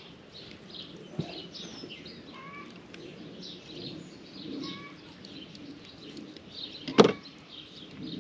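Wild birds chirping and calling, with a small click about a second in and a single sharp knock, the loudest sound, about seven seconds in.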